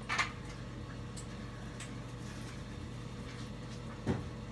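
Faint handling sounds of a glued wooden plug being pressed into a hole in a wooden chair: a short sharp noise about a quarter second in, a couple of faint clicks, and a low knock near the end, over a steady low hum.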